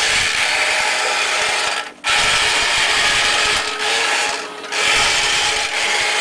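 Small electric motors and gearboxes of remote-controlled toy Daleks whirring as they drive across a tiled floor. The whirr cuts out briefly about two seconds in and dips again around four and a half seconds, then starts back up.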